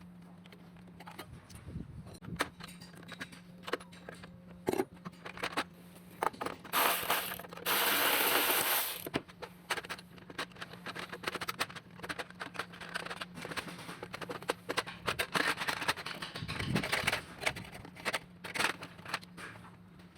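Metal hand tools and engine parts clicking, clinking and scraping during engine disassembly, over a steady low hum. About seven seconds in comes a loud hissing rush lasting about two seconds.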